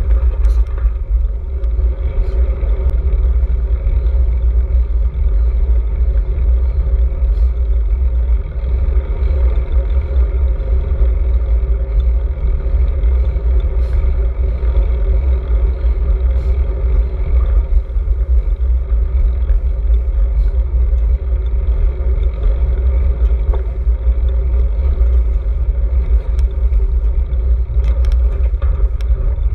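Wind buffeting a handlebar-mounted GoPro's microphone on a moving road bike: a continuous, loud, low rumble that flutters unevenly.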